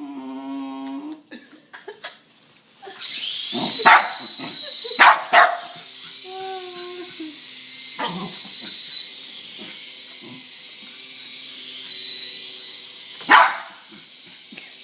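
Dog barking in short sharp barks, about five of them, with a whining yelp near the start and another in the middle. Under the barks, a small motor's steady high whine starts about three seconds in.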